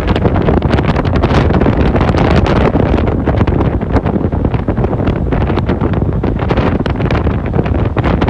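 Wind buffeting the microphone from a moving vehicle, a loud, fluttering rush, with road noise under it.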